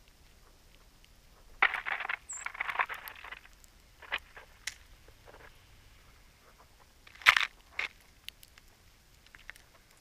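Songbirds foraging for sunflower seeds in snow right beside the camera: scratchy rustles and sharp clicks and cracks of bills on seeds and snow. The rustling is thickest early on, and the loudest single click comes about seven seconds in. There is one brief high chip near the start of the rustling.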